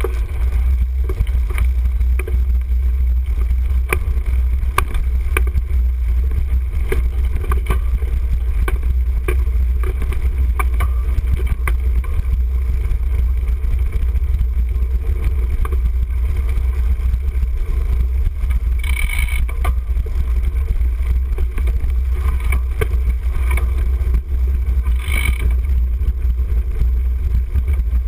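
Steady low rumble of wind and vibration on a handlebar-mounted camera as a cyclocross bike rides over rough grass and dirt, with many small knocks and rattles from the bumps. Two brief, sharper noises come about two-thirds of the way in and again near the end.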